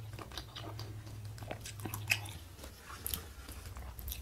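Close-miked chewing of spicy noodle soup, with many quick wet mouth clicks and smacks.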